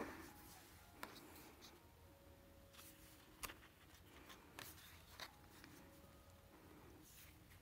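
Faint rustling of stiff photobook pages being turned by hand, with a few soft paper ticks and taps.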